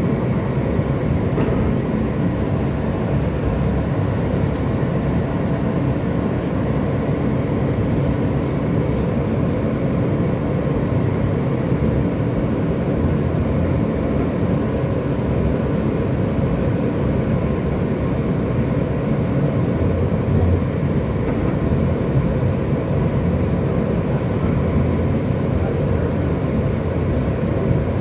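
Rapid-transit L train running along the track, heard from inside the car: a steady rolling rumble of wheels on rails, with a faint steady whine above it.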